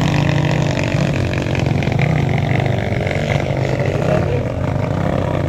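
Dirt bike engine revving as the bike is ridden through deep mud, its pitch rising and falling with the throttle.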